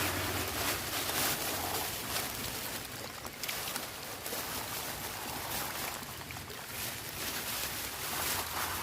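Steady outdoor noise, a hiss with gusty swells that rise and fade every second or so and a low rumble in the first couple of seconds.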